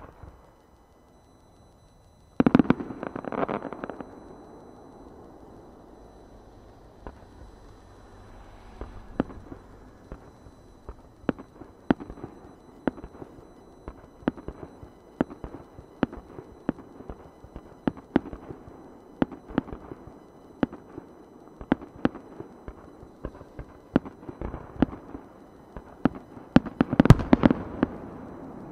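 Aerial firework shells bursting: a loud cluster of bangs about two seconds in, then single sharp reports about one a second, ending in a dense, loud volley near the end.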